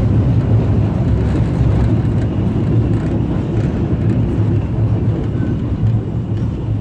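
Steam locomotive 50 3648, a 2-10-0, under way, heard from the footplate at the open cab side window: a loud, steady low rumble.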